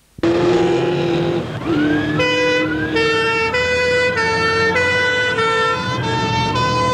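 Fire brigade escort vehicle's two-tone siren sounding, a high and a low note alternating about every half second, after a steady tone and a rising glide near the start.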